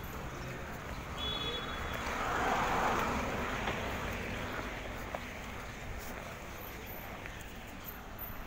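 Street traffic noise, with a vehicle passing and swelling to its loudest about three seconds in before fading back into the steady hum of the road.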